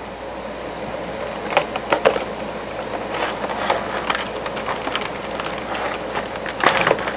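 Cardboard box and plastic packaging of a Funko Pop figure being opened and handled: irregular rustling, crinkling and clicks, loudest about two seconds in and again near the end.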